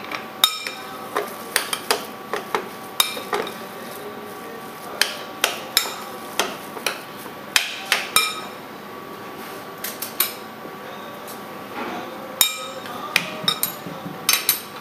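Metal utensil clinking and scraping against a glass bowl while minced beef tartare is mixed, in irregular sharp strikes about one to three a second with a couple of short pauses.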